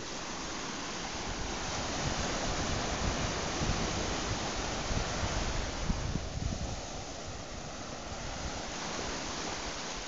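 Small waves breaking and washing up over a sandy beach in foamy sheets, a steady rushing surf that swells over the first few seconds and eases off after about six seconds.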